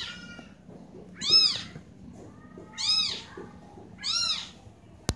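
Kitten meowing repeatedly: three meows about a second and a half apart, each rising then falling in pitch, with a sharp click near the end.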